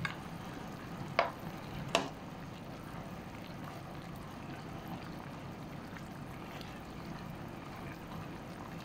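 Squid adobo simmering in its sauce in a pan, a steady bubbling, with two sharp clinks of a metal ladle against the pan about one and two seconds in.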